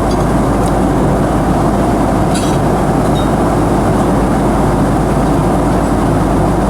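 Steady airliner cabin noise, the constant roar of the jet engines and airflow heard from inside the passenger cabin, with a faint brief clatter about two and a half seconds in.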